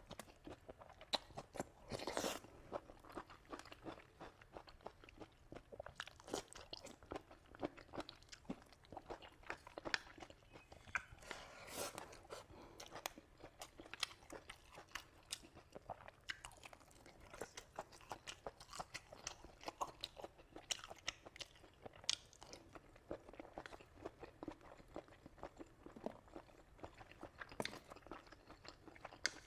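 A person chewing and crunching food close to the microphone: a steady run of irregular crisp crunches and mouth clicks, louder for a moment about two seconds in and again near the middle.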